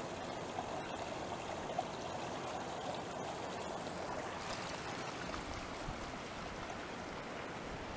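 Shallow river water running steadily over stones at the bank.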